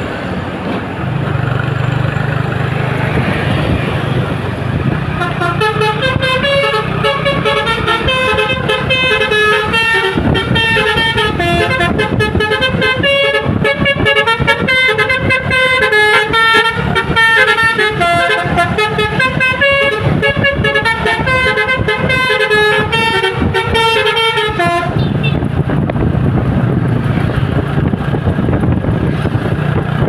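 A coach's Basuri multi-tone telolet horn playing a quick melody of changing notes for about twenty seconds, starting about five seconds in and cutting off near the end. Before and after it, steady road and wind noise with a low engine hum from moving through traffic.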